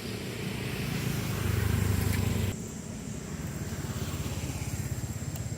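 A motor running with a low hum, louder for about a second and then dropping off sharply about two and a half seconds in, after which it continues more quietly.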